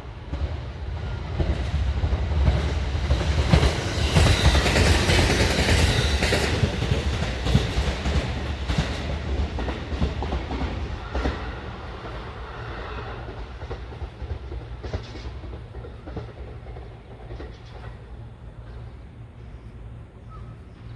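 Shinano Railway SR1 series electric train passing, its wheels clacking over the rail joints. It grows loud within the first few seconds, is loudest about four to seven seconds in, then fades away slowly with fainter clacks.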